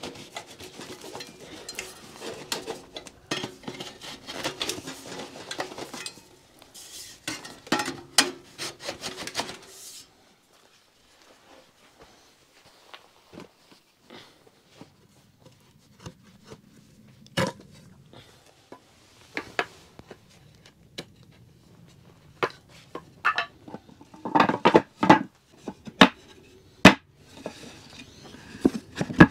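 Clattering, clinking and knocking of metal camp gear being handled. It is busy for about the first ten seconds, then almost nothing for several seconds, then scattered sharp knocks and another short clatter near the end.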